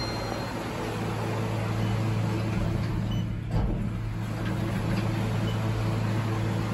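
Steady low machine hum, with a single sharp knock about three and a half seconds in.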